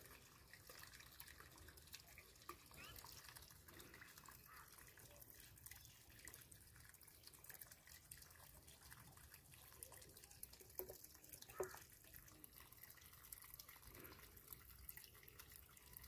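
Near silence: faint background ambience with scattered soft clicks, two a little louder a little past the middle.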